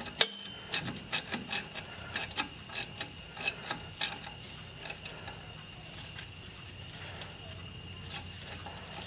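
Hand ratchet clicking in short strokes while a hose clamp is tightened, with one sharp metallic clink near the start. The clicks come two to four a second for about five seconds, then thin out.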